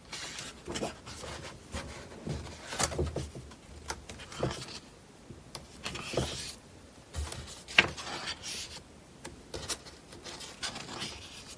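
Pages of a hardcover photo book being turned and handled: irregular paper rustles, slides and soft taps.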